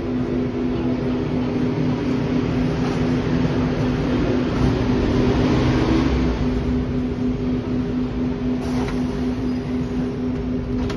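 Hong Kong double-decker electric tram standing at a stop, giving off a steady hum over the noise of street traffic, with a brief click about nine seconds in.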